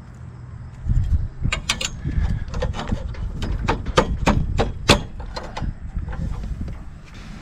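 Stainless steel anchor bracket clicking and knocking against the stainless pulpit rail tube as it is fitted by hand: a quick run of about a dozen sharp metallic taps through the middle, over a low rumble.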